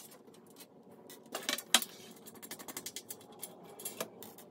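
Light metallic clicks and clinks as small bolts and a thin sheet-metal ceiling-fan pan are handled, with a sharper knock a little under two seconds in.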